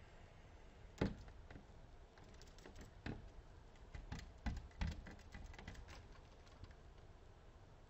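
Irregular light taps and clicks on the window glass and sill, loudest about a second in and in a cluster around four to five seconds, with small ticks between: a male variegated fairy-wren hopping on the sill and tapping at the glass.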